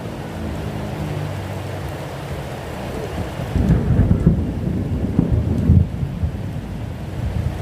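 Steady rain falling, with a low rumble of thunder swelling from about three and a half seconds in to about six seconds. The hum of a passing car's engine fades out in the first second.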